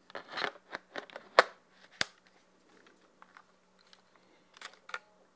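Handling of a mirrorless camera body in a cage as a lens is fitted to it: a run of sharp clicks and clacks, the two loudest about a second and a half and two seconds in, with lighter clicks near the end.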